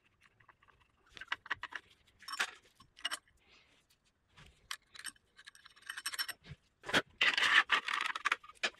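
Aluminium DRO scale bracket and cover being handled against a milling machine's saddle: scattered light metal clicks and scrapes, then a longer, louder rattling scrape near the end.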